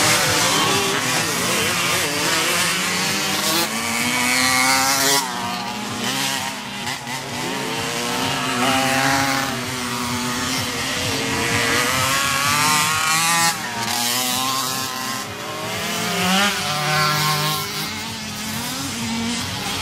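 Several small 50cc two-stroke motocross bikes racing, their high-pitched engines revving up and falling back over and over as they pass and change gear.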